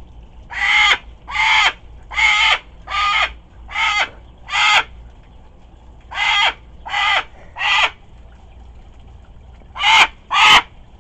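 Moluccan cockatoo giving a string of harsh grumbling calls: six in quick, even succession, then three more, then two close together near the end.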